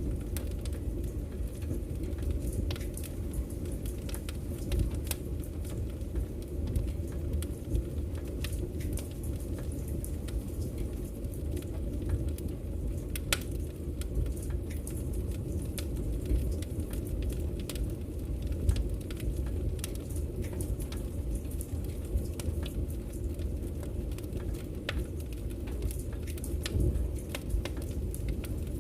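Wood fire crackling in a fireplace: irregular sharp pops and snaps scattered over a steady low rumble of the burning fire.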